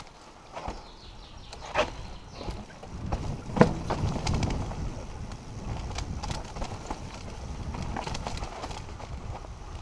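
Mountain bike rolling down rocky dirt singletrack: tyres rumbling over dirt and stones while the bike's frame and chain rattle and click. Sharp knocks about two and three and a half seconds in as the wheels strike rocks, the second the loudest.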